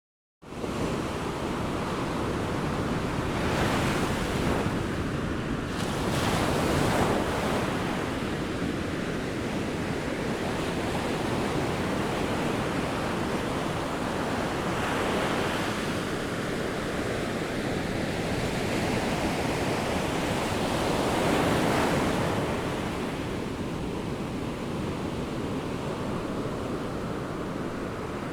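Ocean waves: a continuous rush of surf that starts abruptly and swells louder and eases back several times as waves break and wash in.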